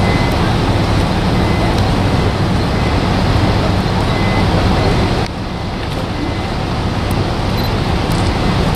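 Steady low engine rumble and road noise of a vehicle, heard from inside a car's cabin. It drops suddenly about five seconds in, then slowly builds back.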